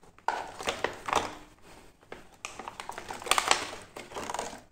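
Clear plastic blister packaging crinkling and crackling in irregular bursts with sharp clicks as hands work a toy dagger out of its moulded tray. The crackles are loudest about three and a half seconds in.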